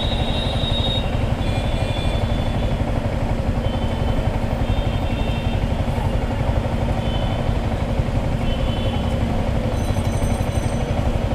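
Motorcycle riding along a road: the engine holds a steady hum under a dense, even rush of wind on the microphone.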